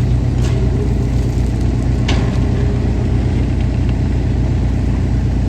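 Engine of farm machinery running steadily at a low, even pitch.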